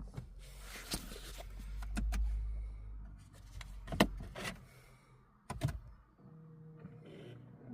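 BMW 330i's N52 straight-six turned over on the starter for about three seconds without firing: a crank-no-start, which the owner puts down to a faulty crankshaft position sensor. Then come sharp clicks and a steady electric hum.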